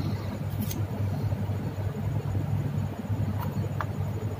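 A steady low hum, with a few faint light clicks.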